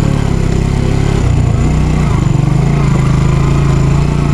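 Motorcycle engine running steadily, its pitch dipping slightly and settling a little lower about a second and a half in.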